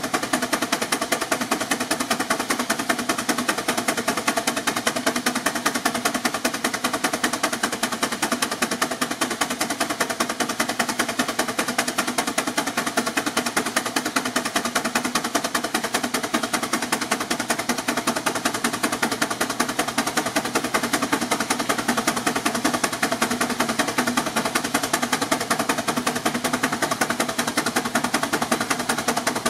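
6 hp Advance steam traction engine running hard under load on a belt-driven dynamometer, its exhaust beating from the smokestack in a rapid, steady staccato.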